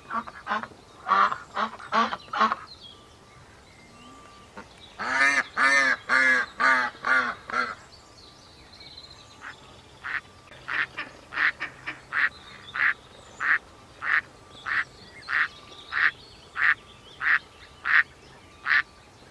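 Ducks quacking: a few calls at first, a loud rapid run of quacks about five seconds in, then a long even series of single quacks, about one and a half a second.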